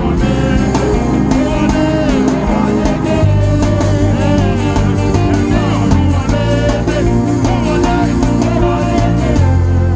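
Live worship band music with a heavy bass line, steady percussion and wavering sung or guitar melody lines.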